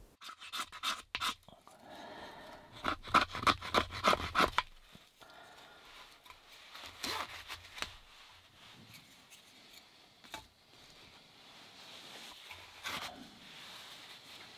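Knife blade scraping and shaving fine curls from a split board of wood. It comes in two quick runs of strokes in the first five seconds, then single scrapes every few seconds.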